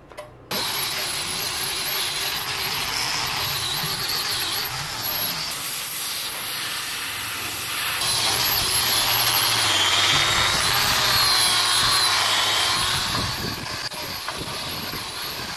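Electric angle grinder with an abrasive disc grinding rust and paint off a generator's metal housing, the motor running with a steady high whine over the scraping noise of the disc on metal. The level drops somewhat near the end.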